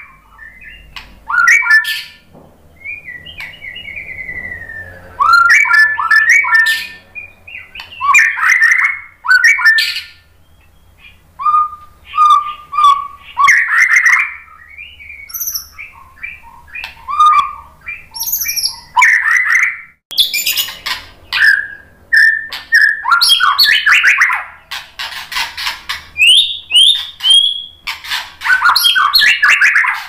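White-rumped shama singing a varied song of clear slurred whistles and quick trills in short phrases with pauses between them, broken by harsh, rapid chattering notes that come thicker and louder from about two-thirds of the way in.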